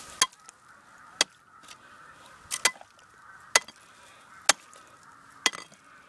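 A rod chopping down at frozen snow and ice to break out a trap set: six sharp knocks, about one a second, one of them a quick double.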